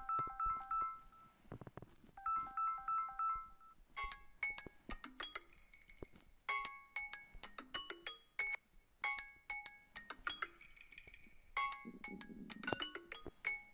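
Samsung Galaxy A9+ ringtones. A short phrase of pitched beeping notes plays twice. About four seconds in, a different ringtone starts: quick, bright, bell-like struck notes in repeated phrases.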